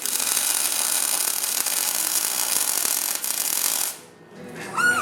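MIG welder arc crackling and sizzling steadily as a bead is laid, cutting off about four seconds in when the trigger is released.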